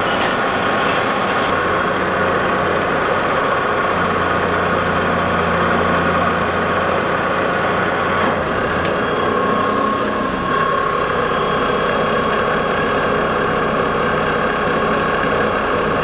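Metal lathe running steadily while a threading tool takes a light scratch pass on a brass plug set up for 16 threads per inch. A low hum joins the machine noise about four seconds in and drops out about four seconds later.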